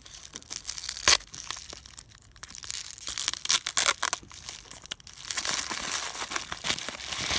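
Thin clear plastic bag crinkling and tearing as it is pulled open by hand, with a sharp crackle about a second in and a steady run of crinkling over the last couple of seconds.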